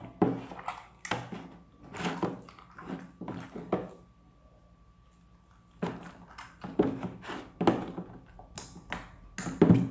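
Hands working a soap-activated slime in water inside a pot: irregular wet squishes and knocks against the container, with a pause of about two seconds in the middle.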